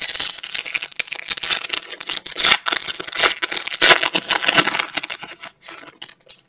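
Foil wrapper of a 2019 Panini Phoenix football card pack crinkling and tearing open in the hands: a dense run of crackles that dies away about five and a half seconds in.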